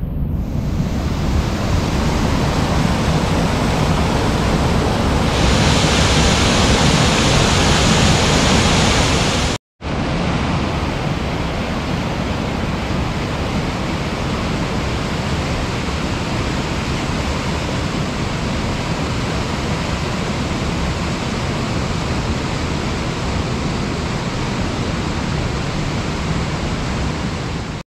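River in flood rushing, a loud steady rush of water. It is brighter for a few seconds before a brief dropout about ten seconds in.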